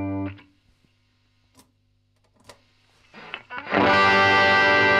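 Electric guitar through a Marshall SV20C valve combo amp. A ringing chord is muted right at the start, leaving only a low amp hum and two small clicks. About three and a half seconds in, a fresh chord is struck and left to ring.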